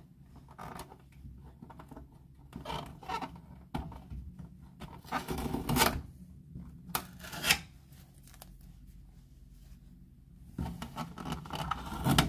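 Fingers scraping at and peeling an adhesive sticker off a new fridge freezer's surface: irregular scratchy rubbing strokes, with a few sharper scrapes about halfway through and another cluster near the end.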